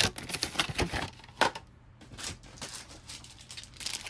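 Packs of scrapbook embellishments being handled: crinkling packaging and light clicks and taps, busiest in the first second and a half, then lighter.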